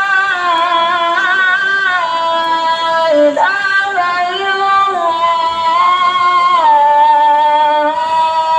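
A high solo voice singing a slow melody in long held notes, sliding and ornamenting between pitches.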